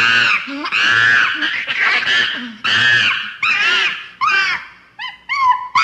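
Monkey screaming: a run of about eight shrill, high-pitched calls that arch up and down in pitch, the first few long and the later ones shorter and coming quicker.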